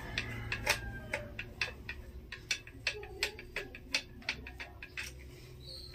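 A screwdriver turning the small screw in the plastic back of an Ingco digital multimeter to open its battery compartment, giving a run of light clicks, about four a second.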